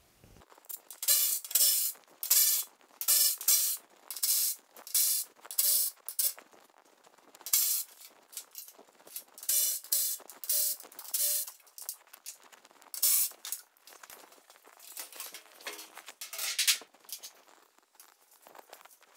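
A hand tool working the bolts on a steel garage door panel's hinge hardware: a run of short, sharp, rasping bursts, several in quick succession and then in shorter groups with pauses between.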